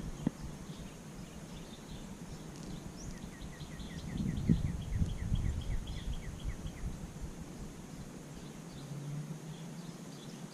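A bird calling a rapid series of short chirps, about four a second, for a few seconds, with low rustling underneath.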